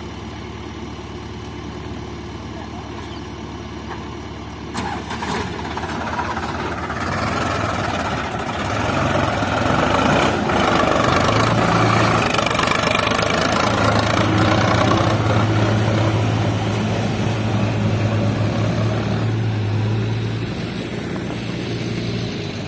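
Heavy diesel engine of a tractor or backhoe loader running steadily. It grows louder about five seconds in and pulls harder through the middle stretch, then eases slightly near the end.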